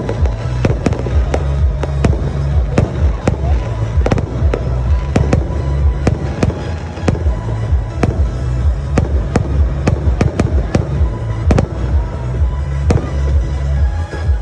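Aerial fireworks going off: an irregular series of sharp bangs, several a second, over a continuous low rumble.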